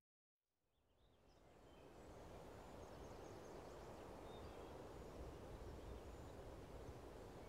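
Silence, then faint woodland ambience fades in about two seconds in: a low, steady background with a few distant bird chirps.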